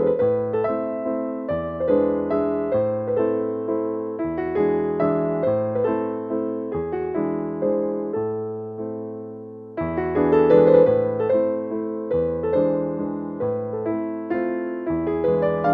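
Background piano music, a steady run of struck keyboard notes, with a new phrase starting about ten seconds in.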